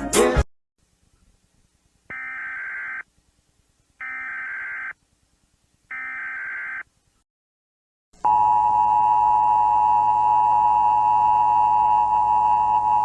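Emergency Alert System SAME header: three identical bursts of warbling data tones, each just under a second long and about two seconds apart. About eight seconds in, the EAS two-tone attention signal starts, a loud steady alarm tone.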